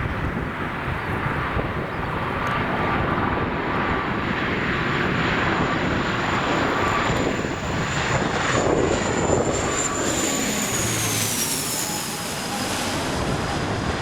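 Airliner's engines as it flies past on its landing approach: a rushing noise with a high whine that drops in pitch about ten seconds in as the aircraft passes.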